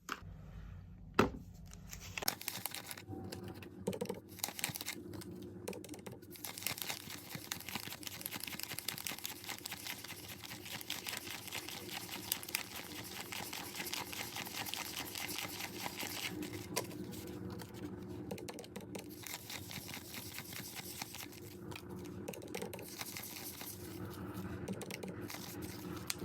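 Calculator keys being punched in quick succession, a dense run of small plastic clicks, with paper banknotes rustling as they are handled.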